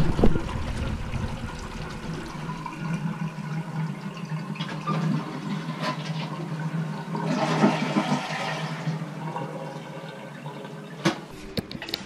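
Water from the basin draining through a newly installed IKEA sink drain and trap, a continuous rushing wash that grows louder for a couple of seconds past the middle.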